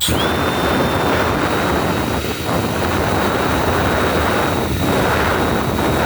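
Electric drill with a whiz wheel on its end starting up suddenly and running at a steady high whine, used to clean rust off ignition coils.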